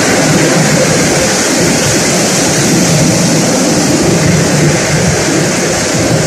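Flour mill machinery driven by electric motors, running with a steady, loud mechanical din.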